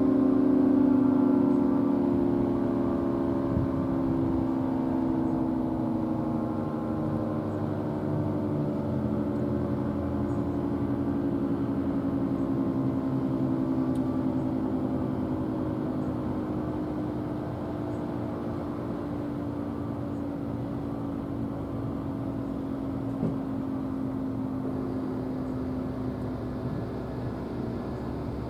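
Federal Signal 3T22 three-tone outdoor warning siren winding down after the test: its chord slides slowly lower in pitch and fades gradually.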